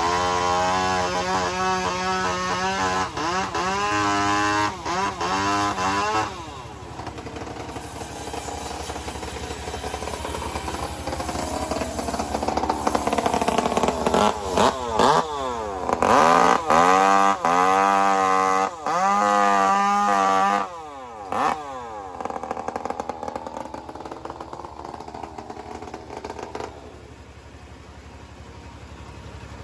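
An engine-driven sawmill running, its engine pitch rising and falling again and again as the load changes, with some knocks. After about twenty seconds it drops to a quieter, steadier run.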